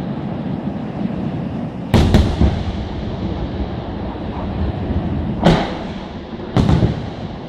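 Aerial firework shells bursting. There are sharp bangs about two seconds in (a close pair), and again around five and a half and six and a half seconds, each trailing off in an echo, over a continuous rumble of further bursts.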